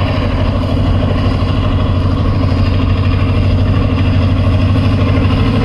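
ZCU-20 (GE U20C) diesel-electric locomotive engine running with a steady low drone as it approaches hauling a freight train.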